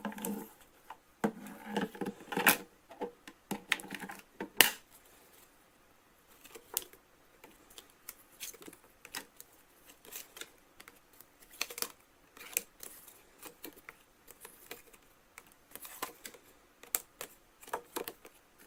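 Hands handling a plastic toy: scattered irregular clicks and taps, with some scraping and rustling in the first few seconds.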